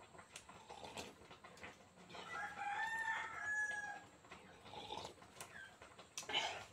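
A rooster crowing once, a single call of about two seconds starting about two seconds in, with a few faint clicks around it.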